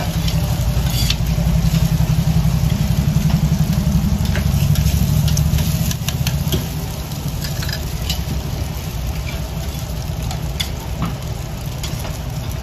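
A steady low mechanical rumble, with light clicks and clatter over it; it gets a little quieter about six and a half seconds in.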